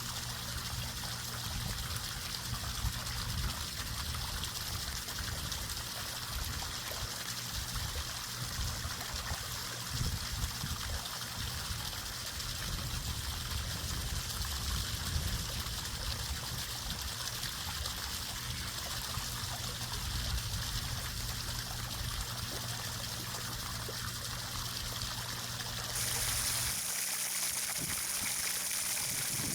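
Water trickling steadily. Near the end the sound changes abruptly to a brighter, slightly louder hiss.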